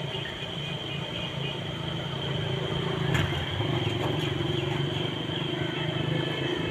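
Steady outdoor road noise with a low engine-like hum and a steady high-pitched tone, broken by two sharp clicks about three and four seconds in.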